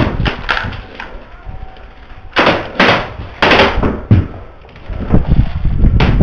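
Sharp knocks on the wooden boards of a plywood shed, three in quick succession about half a second apart and one more a little later. Near the end a rapid rattle of airsoft rifle fire starts up.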